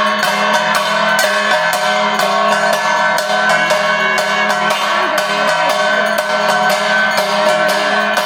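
Evening arati devotional music: a steady clanging beat of percussion, about three strikes a second, over a sustained drone and held tones.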